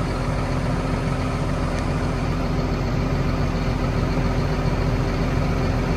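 Farm vehicle engine running steadily at a constant speed, a low even hum with no change in pitch.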